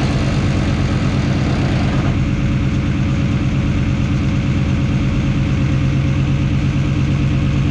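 Diesel 4x4 pulling truck's engine idling steadily.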